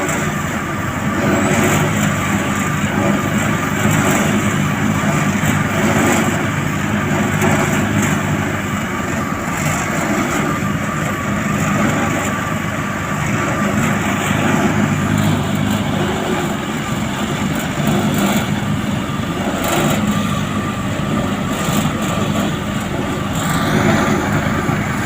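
Diesel engines of heavy asphalt-paving machinery running steadily under load, with a few short knocks now and then.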